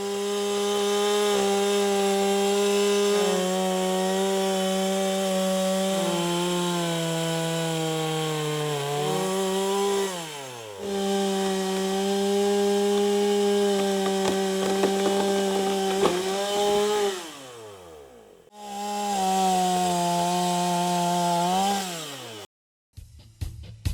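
Oleo-Mac two-stroke chainsaw at full throttle, cutting wood. Its high engine note sags under the load of the cut, then winds down as the throttle is released, three times over.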